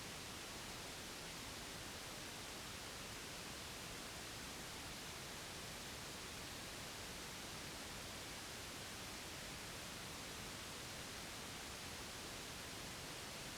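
Steady, unchanging white noise played as a baby sleep aid: an even hiss, strongest in the treble.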